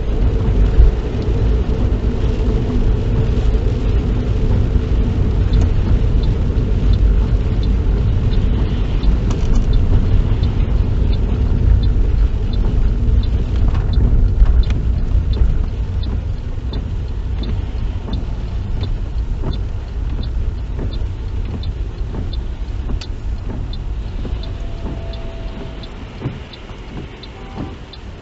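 Car cabin road noise: a steady low rumble of tyres and engine that slowly quietens as the car slows, with the turn indicator ticking evenly for a left turn.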